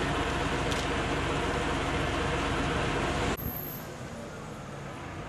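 Steady outdoor rumble and hiss on a camcorder microphone, of a kind typical of passing traffic or wind. It drops abruptly about three seconds in to a quieter, even outdoor hiss.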